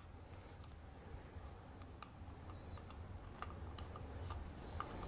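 Faint, scattered light clicks of a T-handle hex driver and screw being turned by hand into the aluminium crankcase of a 1/5-scale two-stroke engine, over a low steady hum.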